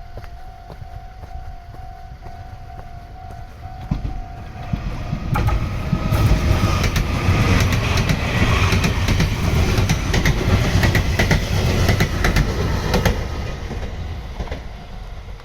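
A level-crossing bell rings steadily. About five seconds in, a Meitetsu electric train passes, loud, with its wheels clacking over the rail joints, and it fades away near the end.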